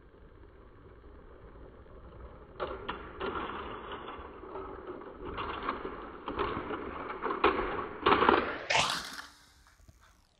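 Lego toy train clattering along plastic track, an irregular run of clicks and rattles that starts about two and a half seconds in and grows louder, loudest about eight seconds in, then stops shortly after.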